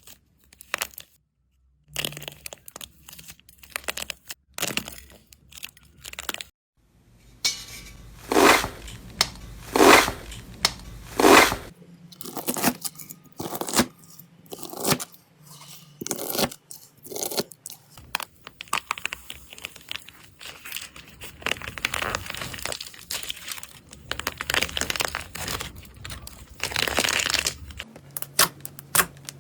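Slime being squeezed and pressed by hand, giving a run of crackles, snaps and small pops, with three louder pops about nine to twelve seconds in and a denser crackling later on.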